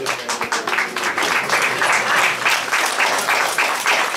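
Audience applauding, the clapping swelling about a second in.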